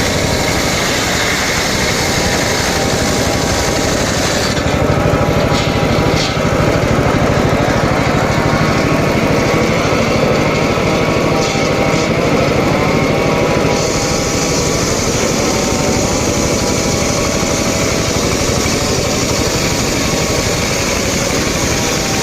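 Homemade engine-driven circular saw running steadily while sawing teak wood. From about four seconds in, the top of the sound thins and the pitch wavers for about ten seconds before it settles again.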